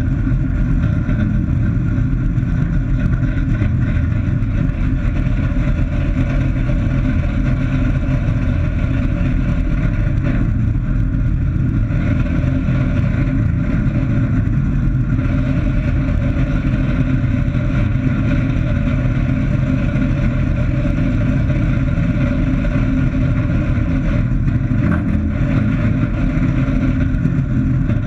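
Piston engine and propeller of a small experimental airplane running steadily while it taxis, heard from inside the closed cockpit.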